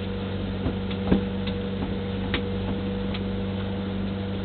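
Outrigger boat's engine running steadily underway, a constant droning chug, with a few sharp knocks over it, the loudest about a second in.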